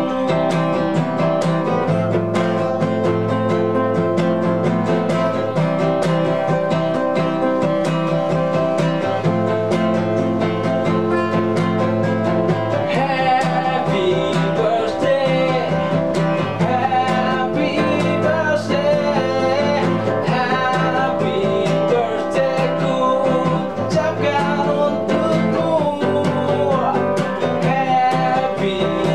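A steel-string acoustic guitar and a nylon-string classical guitar playing a song together, chords and picked lines. From about halfway a man's voice sings the melody over them.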